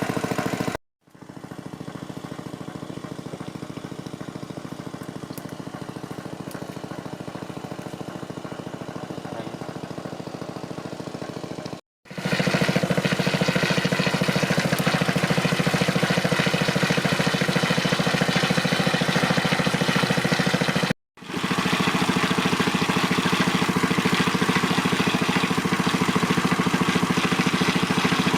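A small engine running steadily at an even speed. It cuts out abruptly three times, about a second in, about twelve seconds in and about twenty-one seconds in, and comes back louder after the second break.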